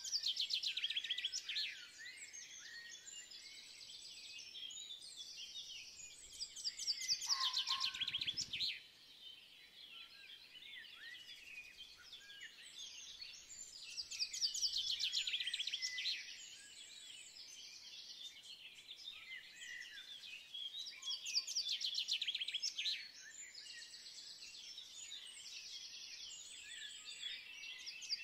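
Background birdsong: many small birds chirping and trilling, with louder stretches of song coming back about every seven seconds.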